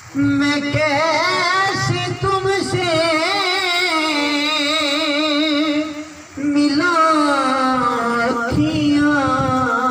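A man singing a naat in long ornamented phrases with heavy vibrato, over a steady held low note. The singing drops out briefly about six seconds in, then a second phrase begins.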